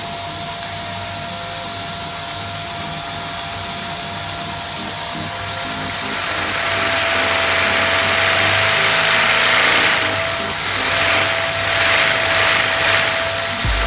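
Vacuum cleaner running and drawing air through a Lego vacuum engine: a steady motor whine over rushing air. The air noise grows louder about six seconds in, as the valve lever is worked, and fast rhythmic pulsing comes in from about ten seconds as the engine runs.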